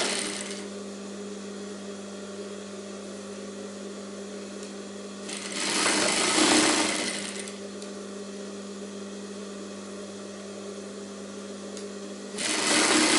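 Sewing machine stitching in short runs: a brief run at the very start, another of about two seconds around the middle, and a third starting near the end. A steady low hum carries on between runs.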